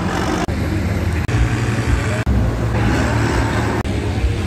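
Farm tractor diesel engines running, a steady low drone that breaks off abruptly several times.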